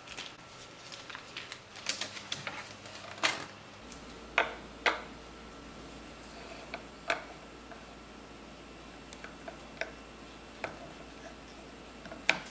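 Light clicks and rustles of batter being piped onto a parchment-lined baking tray, then a few separate sharp knocks as a block of dark chocolate is set down and chopped with a knife on a wooden cutting board.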